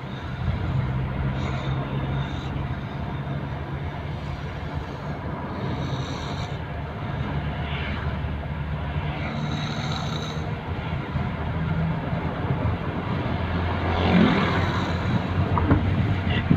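A person snoring heavily in deep sleep, the snores swelling every few seconds over a steady low drone.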